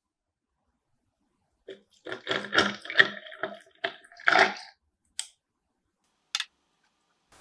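Hot coffee poured from a glass beaker onto ice in a glass mason jar: the ice cubes crack and clink against the glass in a quick run of sharp, ringing knocks lasting about three seconds, followed by two single cracks as the ice settles.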